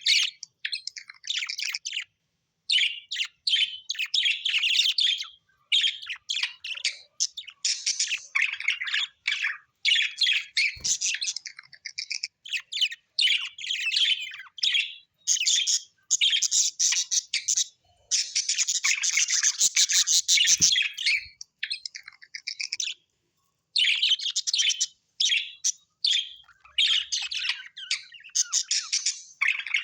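Small pet parrots chattering and chirping in rapid bursts of high notes, with short pauses between bursts.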